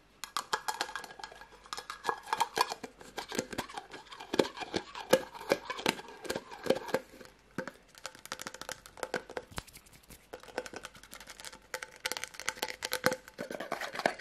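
Fingers handling a plastic jar and its screw-on lid: a busy run of irregular clicks, taps and scrapes as the lid is turned and the jar tapped, thinning out for a few seconds past the middle before picking up again near the end.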